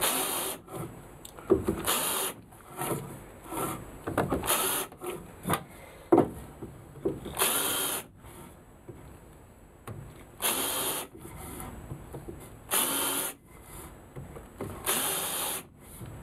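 Cordless drill spinning a countersink bit into a softwood rail, in about seven short bursts of half a second to a second each. Between the bursts there are light knocks as the drill and the wood are moved.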